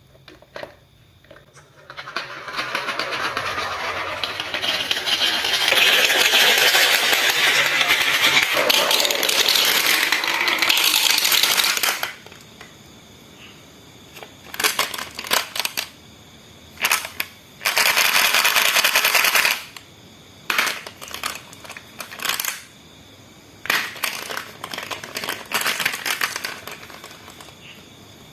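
Marbles rolling and clattering down a wooden marble-run track: one long roll that grows louder for about ten seconds, then five or six shorter bursts of rolling.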